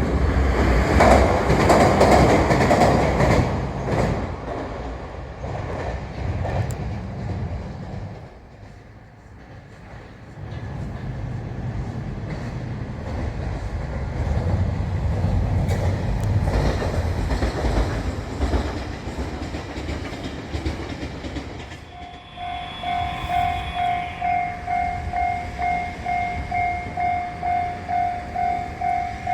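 A train running past on the tracks, rumbling and clacking, loudest in the first few seconds and again around the middle. About two-thirds of the way in, a Japanese railroad crossing alarm starts ringing, a pulsing bell repeating about two to three times a second.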